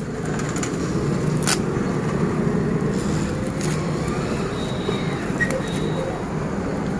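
Steady low rumble of motor vehicles, with a few brief crackles and clicks as plastic wrapping and a cardboard parcel are handled.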